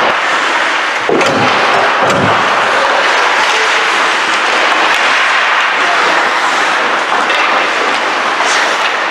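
Steady rushing noise of ice hockey play in a rink, skates scraping the ice, with a couple of low thuds about one and two seconds in.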